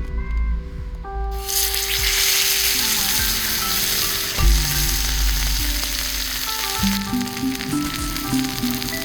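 Food frying, a steady loud sizzle that sets in abruptly about a second and a half in.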